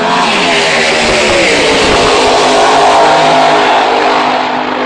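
Two drag-racing cars launching and accelerating at full throttle down the strip. The engine pitch climbs in the first second, then loud engine noise holds through the run.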